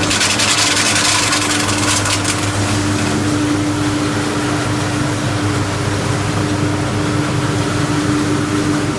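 Electric fish scaling and belly-splitting machine running with a steady hum and hiss. For the first two seconds or so it adds a louder rattling clatter, and it cuts off sharply at the very end.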